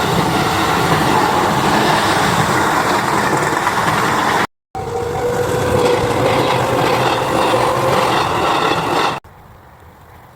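A JR Yamatoji Line electric train running past a level crossing: loud, steady rolling noise from the wheels and cars, with a faint steady whine in the second half. The sound drops out for a moment about halfway through, then cuts off suddenly to a quiet background near the end.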